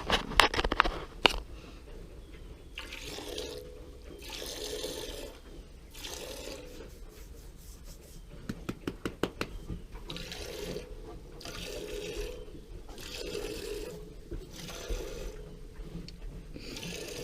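Cow being milked: streams of milk hiss into a milk pail in repeated surges about every second and a half. There are a few sharp clicks at the start, and a quick run of clicks about nine seconds in.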